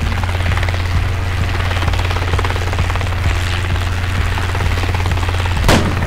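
Helicopter sound effect: a steady rotor chop over a low engine drone, with a brief loud burst near the end.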